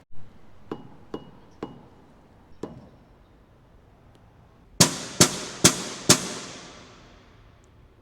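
Metal rod striking metal: a few light taps with a faint ring, then four hard hits about half a second apart, each ringing out with a long echo in a concrete underpass.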